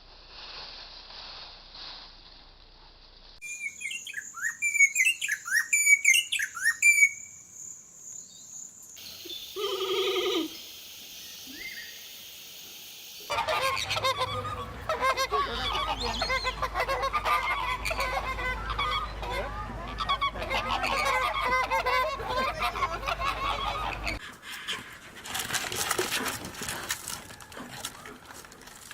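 A series of bird recordings one after another: quick high chirps, a short honking call, then a dense chorus of many birds calling at once, which stops suddenly about 24 seconds in.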